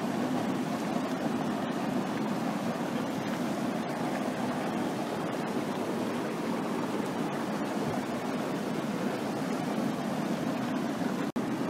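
Terminal Geyser's steam vent rushing and hissing steadily, with hot water boiling among the rocks. The sound cuts out for an instant near the end.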